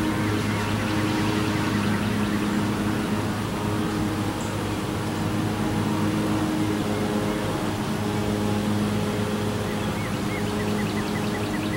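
Steady mechanical hum with a low drone, plus a quick series of short high chirps near the start and again near the end.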